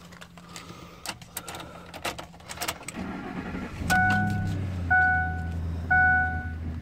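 Keys jingling and clicking in the ignition, then a 2007 Ford F-150's engine starts about three seconds in and settles into a steady idle. A dashboard warning chime sounds about once a second over the idle.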